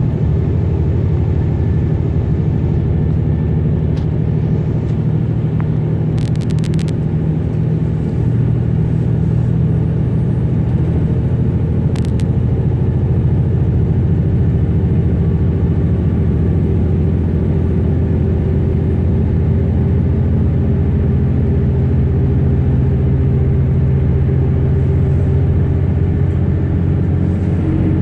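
Class 323 electric multiple unit train running, a steady low rumble with no change in pitch, and a few brief clicks about 4, 7 and 12 seconds in.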